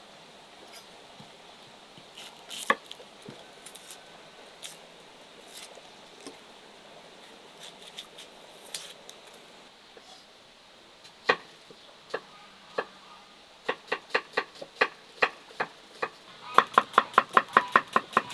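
Knife chopping an onion on a wooden cutting board. The knocks are scattered at first, then settle into a fast, even run of about four chops a second near the end.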